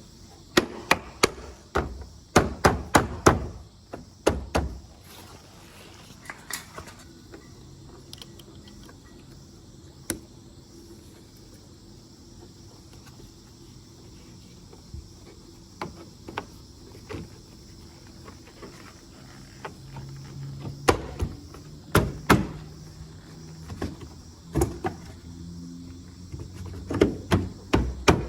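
Clicks and knocks of plastic parts being handled as a parking sensor is pushed back into its mount in a car's rear bumper, in quick clusters at the start and again in the last several seconds, with only scattered single clicks between.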